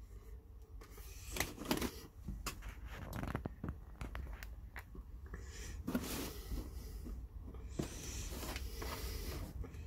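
Handling noises: scattered light knocks, clicks and rustling as objects are moved about, over a low steady hum.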